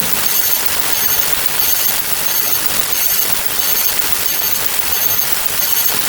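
A loud, steady hiss like static, with no clear pitch.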